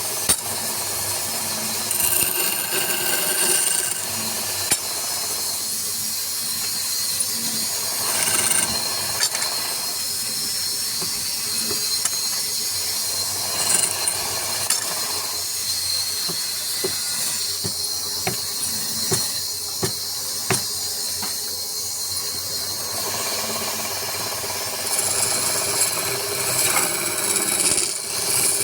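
Power tool working wood: a steady hiss with scattered sharp clicks and knocks.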